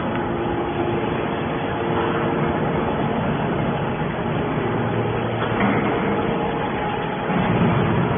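Hydraulic can baler running: a steady machine noise with a low hum, swelling a little now and then.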